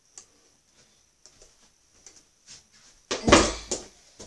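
A few faint clicks, then about three seconds in a loud, short burst of heavy breathing close to the microphone, from someone out of breath after exercising.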